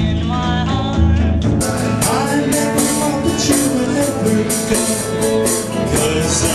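Rock-and-roll music with electric guitars, drums and singing. About a second and a half in, the sound switches abruptly to a brighter, fuller-sounding live band recording.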